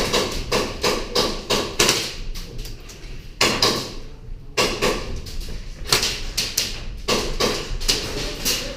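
Irregular sharp cracks and knocks of close airsoft play, a dense run of them in the middle, with no voices.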